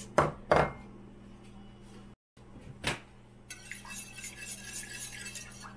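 A few sharp knocks, then from about three and a half seconds in a wire whisk beating egg into orange juice in a glass mixing bowl: fast, continuous clinking of the wires against the glass.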